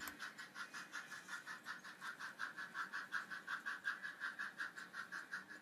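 S scale narrow gauge (Sn3) model steam train running, heard as a faint, steady, rapid pulsing of about six beats a second.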